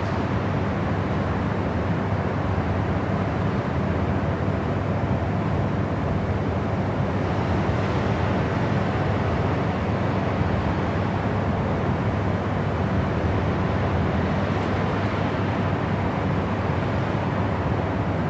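Steady white noise for sleep: an even, unbroken rushing hiss, heavier in the low range than in the high.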